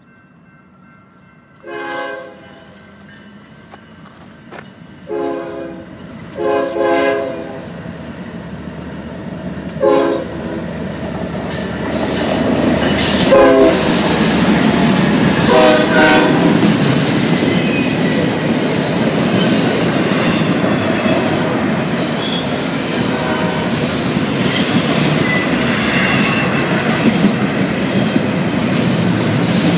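Locomotive horn sounding several separate blasts as a train approaches, then the train passing close by with a loud, steady rumble of wheels on rail and a brief high wheel squeal partway through.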